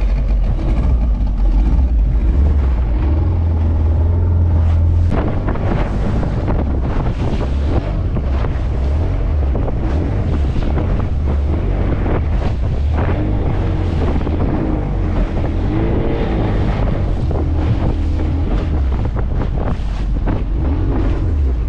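Small outboard motor running under way with a steady low drone, mixed with wind buffeting the microphone and waves splashing against the fibreglass hull.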